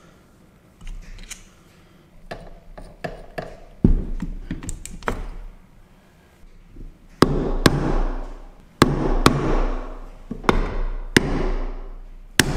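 Light clicks and taps of metal parts and tools being handled, then about seven sharp hammer blows on a hand impact driver, some in pairs, each ringing briefly, as it works seized engine-case screws loose.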